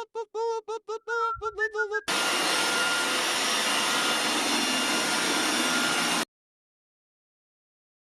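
A run of short, high-pitched squeaky chirps, then a Roomba robot vacuum running steadily for about four seconds before cutting off abruptly into silence.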